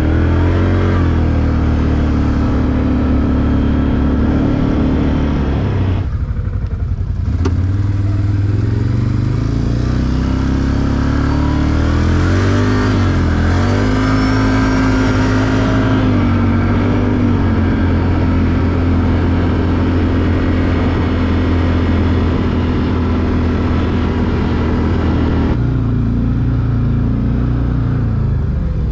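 Quad (ATV) engine running under throttle while riding. It revs up near the start, eases off briefly about six seconds in, pulls up again around halfway, then holds a steady note.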